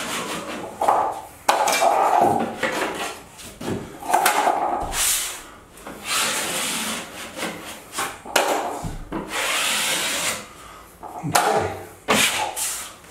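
Drywall taping knife scraping joint compound across drywall in a series of long strokes, about one a second, as the mud is spread and wiped tight to feather the edges.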